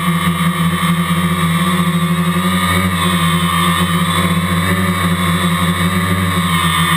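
Quadcopter's electric motors and propellers running steadily in a hover, heard up close from the GoPro mounted on the aircraft: a loud, even drone with a higher whine over it.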